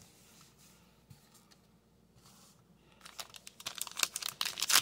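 A foil trading-card pack crinkling and tearing as it is handled and opened, starting about three seconds in as a run of quick sharp crackles.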